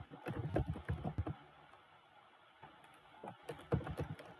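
Typing on a computer keyboard: a quick run of keystrokes for about a second and a half, a pause, then more keystrokes near the end.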